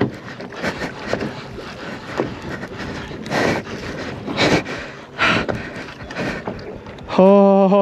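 Wind buffeting the microphone and water noise around a boat at sea, rising and falling in uneven surges, while a fish is reeled up from deep water on a conventional reel. Near the end a man's voice lets out a long, drawn-out 'ohh'.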